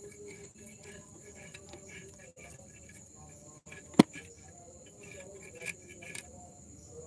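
Crickets chirping steadily in the background, with a single sharp knock about four seconds in.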